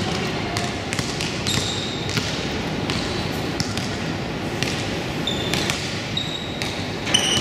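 Indoor basketball game in a large gym: the ball thumping on the hardwood court, repeated sneaker squeaks and the steady hubbub of players and spectators. A short shrill whistle, likely the referee's, sounds near the end.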